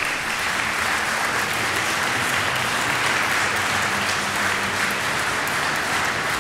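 Audience applauding: many people clapping in a steady, even wash.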